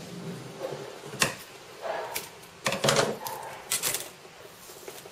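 Several sharp clicks and taps as a taped laptop screen bezel is handled and shifted across a work mat, the loudest a few at a time near the middle.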